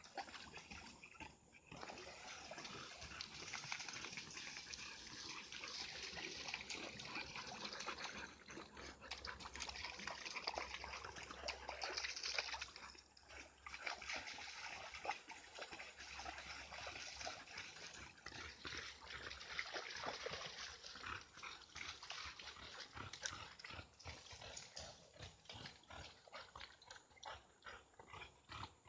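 Dogs moving about over a steady rushing hiss, with many small ticks. Near the end come quick, regular pulses.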